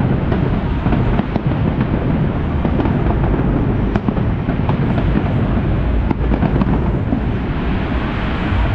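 Fireworks going off in a dense, unbroken run of bangs and crackles, over a heavy low rumble.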